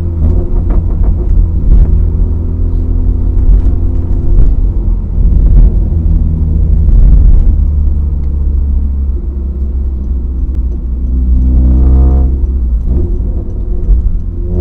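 Honda CR-Z's 1.5-litre four-cylinder engine breathing through a custom direct exhaust with a trumpet muffler, heard inside the cabin while driving: a loud, low drone that rises and falls with the throttle. About eleven seconds in it revs up sharply in pitch, then drops off about a second later.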